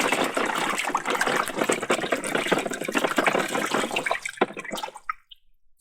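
Hands washing a toy vehicle in a basin of water: splashing and sloshing with small clicks, dying away about four seconds in.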